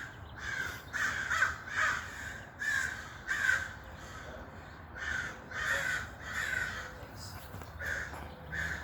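Birds calling over and over while being fed bread: short calls, often two or three close together, then a pause.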